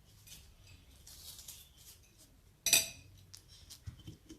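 Kitchenware being handled: light rustling, then one sharp ringing clink about two and a half seconds in, and a few light knocks near the end.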